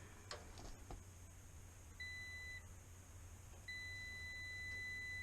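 Multimeter continuity beeper: one short beep about two seconds in, then a steady beep from about three and a half seconds on as the probes hold across the wire, showing an unbroken circuit.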